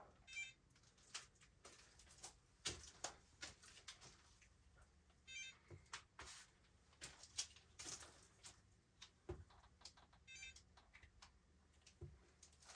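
Near silence, with scattered faint clicks and taps from plastic paint cups being handled and set against the canvas during a paint pour. A faint short chirp recurs three times, about five seconds apart.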